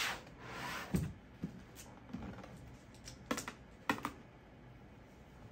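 White cardboard box of a Mac Studio being handled and opened: a brief scrape of cardboard sliding at the start, then light taps and knocks, the two sharpest about three and four seconds in.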